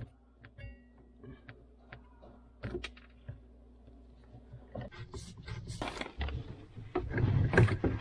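Small metallic clicks and taps of tongue-and-groove pliers working the nut on a braided water supply line, a few with a brief ring. In the second half they give way to louder, denser handling rustle and knocks.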